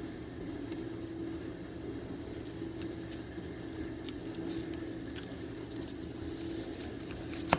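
Steady low electrical or appliance hum, with faint scattered clicks and one sharp click near the end.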